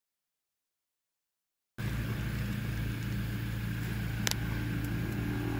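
Dead silence for almost two seconds, then a car's steady low running hum heard from inside its cabin starts abruptly, with a single sharp click about four seconds in.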